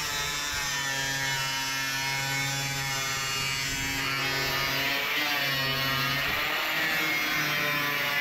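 Electric angle grinder with an abrasive disc grinding the steel panel edge of a truck cabin, its motor whining steadily as the disc bites the metal.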